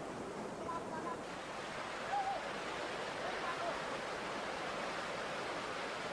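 Steady rushing outdoor noise, with a few brief, faint rising-and-falling calls over it about a second in, a little after two seconds and again around three and a half seconds.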